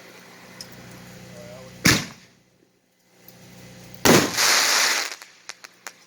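4-inch aerial canister shells being fired in sequence from a rack: two loud bangs about two seconds apart. The second is followed by about a second of hissing crackle, then a few sharp pops.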